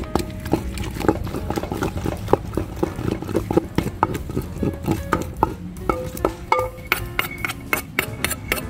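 A pestle stirring a wet chili paste in a mortar, knocking against the mortar's sides in rapid, irregular taps, several a second.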